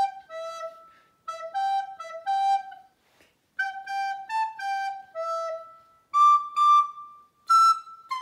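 Soprano recorder playing a simple tune of single held notes in short phrases with brief breaths between them, ending on a higher phrase (high D D E C).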